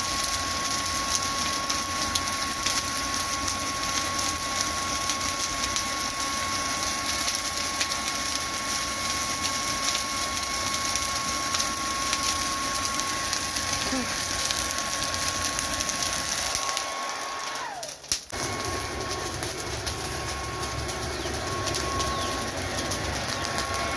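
Hair dryer blowing into the charcoal of a mangal grill to get the fire going: a steady rush of air with a high motor whine and light crackling. About two-thirds of the way through, the whine drops in pitch and the sound cuts out for a moment, then starts again.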